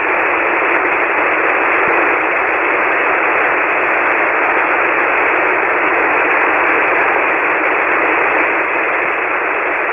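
Steady hiss of a shortwave SSB receiver on the 40-metre band with no voice on the channel: band noise filling the receiver's narrow voice passband, with no tone or rhythm in it.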